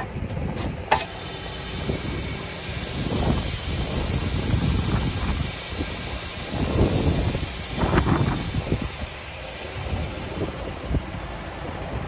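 Wheat grain pouring from an overhead bin into a metal weigh hopper: a steady hiss that begins about a second in, after a few clicks as the bin's slide is pulled open, and thins out near the end.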